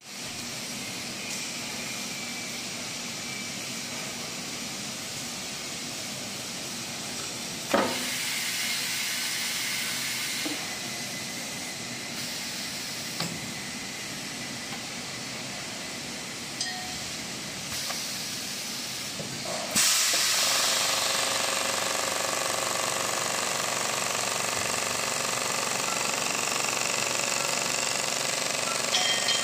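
Vacuum compression packing machine at work, with a steady hiss of air. About eight seconds in comes a sharp burst followed by stronger hissing for a couple of seconds. From about twenty seconds a louder steady machine hum with hiss starts and keeps running.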